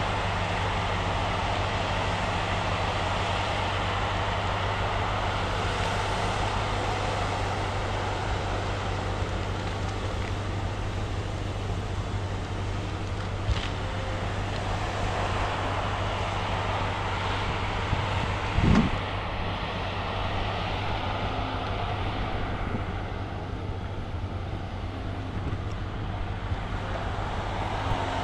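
Cat 568 shovel logger's diesel engine running steadily, with a sharp knock about 13 seconds in and a louder thump about 18 seconds in.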